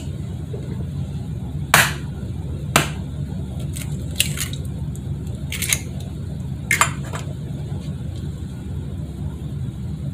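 About six short, sharp knocks and clicks of kitchen containers and utensils being handled on a counter, over a steady low hum.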